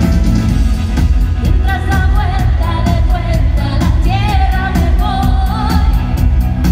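Live pop-dance music played loud over an arena sound system, with a steady, bass-heavy beat; a singing voice comes in about one and a half seconds in and carries the melody.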